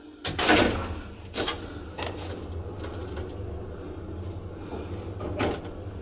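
A vintage elevator setting off downward: a loud clunk as it starts, then the steady hum of the lift machinery with a few lighter clicks, and another clunk near the end.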